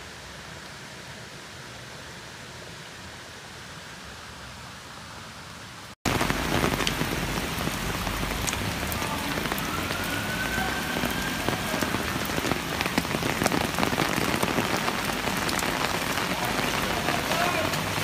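Heavy rain pouring onto a flooded street: a dense hiss of drops splashing on standing water and pavement, full of sharp individual drop hits. For the first six seconds there is only a quieter steady hiss, then the louder downpour cuts in abruptly.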